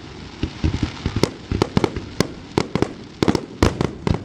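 Fireworks bursting in rapid, irregular succession, many sharp bangs a second over a continuous crackle, as in a finale barrage.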